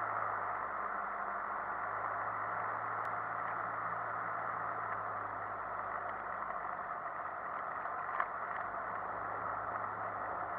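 Cessna 152's four-cylinder Lycoming engine and propeller droning steadily, heard from inside the cockpit as the plane rolls over grass. A single sharp click comes about eight seconds in.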